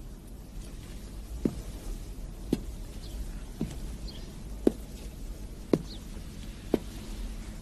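Soft, evenly spaced thuds, six in all, about one a second, over a faint low hum.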